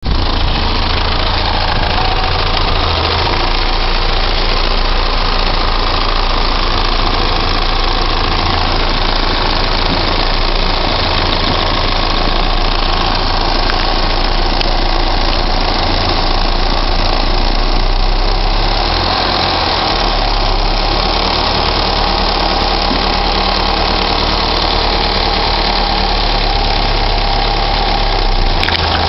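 Engine idling steadily, with an unusual noise in its running.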